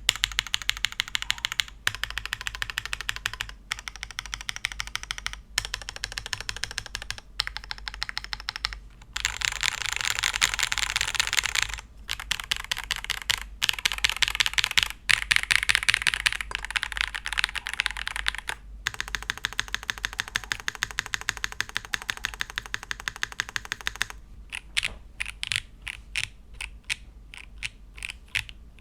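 Typing on a Chilkey ND TKL mechanical keyboard with Kailh Blue Lotus switches: fast runs of keystrokes broken by short pauses every couple of seconds, slowing to separate, evenly spaced key presses near the end.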